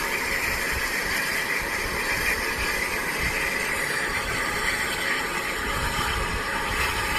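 Bulleid West Country class steam locomotive No. 34007 standing, with a steady hiss of escaping steam.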